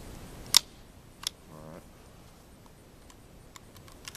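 A single shot from a Charter Arms Explorer II .22 semi-automatic pistol: one sharp crack about half a second in, then a fainter click. The shot leaves the pistol jammed, its spent case failing to eject.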